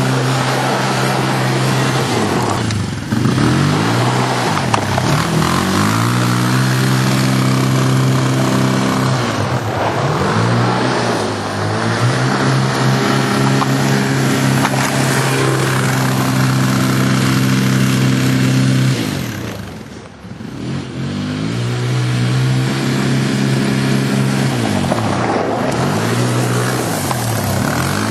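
Quad ATV engine revving up, holding a steady high pitch for a few seconds, then dropping back, over and over as the machine is ridden through tricks, with a steady hiss of noise over it. About twenty seconds in the engine briefly drops off and goes quieter before picking up again.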